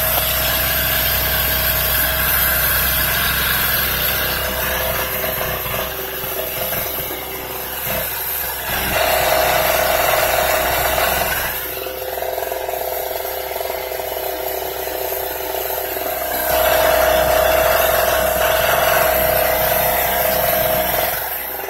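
Harbor Freight TailGator 700-watt portable generator's small two-stroke engine running steadily, with a constant engine tone. It gets louder for a couple of seconds about 9 seconds in, and again for a few seconds from about 16 seconds in.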